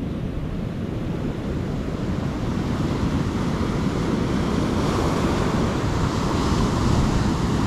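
Ocean surf breaking and washing up the sand at the water's edge: a steady rush that grows louder through the second half.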